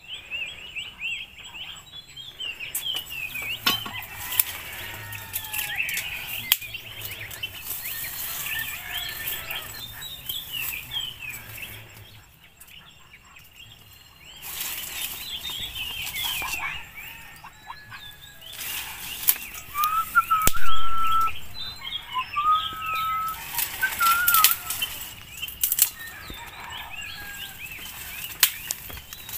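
Small wild birds chirping and trilling continuously in the scrub, with a few clearer whistled notes past the middle. Rustling of dry vegetation and handling noises come and go, the loudest about two-thirds of the way through.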